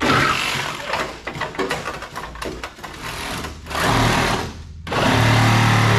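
Handheld power tool chattering against the rusted steel of a car's quarter panel in short bursts as the panel is cut free. About five seconds in, a steady machine hum starts and holds.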